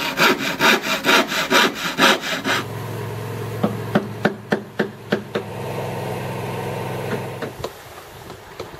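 Handsaw cutting through plywood in quick back-and-forth strokes, about four a second, for the first two and a half seconds. The sawing then gives way to a steady low hum with several sharp clicks.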